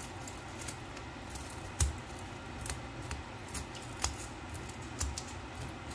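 A metal spoon scraping scales off a whole fish on a plastic cutting board: a run of short, crisp scraping strokes, one or two a second, a few of them with a dull knock against the board.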